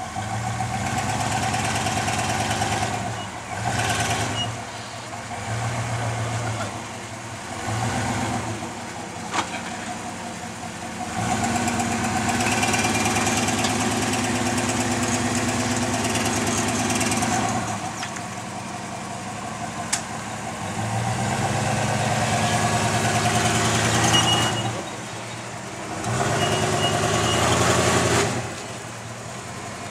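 Toyota Hilux rock crawler's engine working in throttle bursts as the truck crawls up a rock step. It runs quietly between pulls, with two long, loud pulls in the middle and near the end. A single sharp crack comes about two-thirds of the way in.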